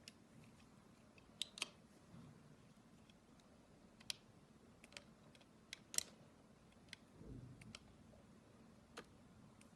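Knife cutting clear soap: sparse, irregular sharp clicks and taps, about a dozen in ten seconds, with a soft thud about two-thirds of the way through.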